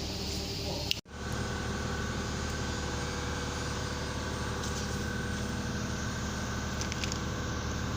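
Mercedes S500 V8 engine idling steadily. The sound cuts out abruptly about a second in and resumes.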